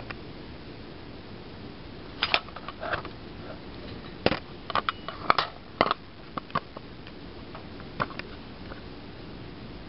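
Handling noise from a handheld camera: a scatter of sharp clicks and light knocks, bunched in the middle seconds, over a steady low hiss.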